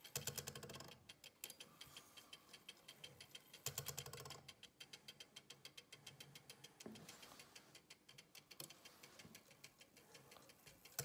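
Faint, fast, even ticking of a freshly assembled Breguet carriage clock movement running on its half-dead-beat escapement. Two short louder spells of rapid clicking come at the start and about four seconds in, as the striking train is set running.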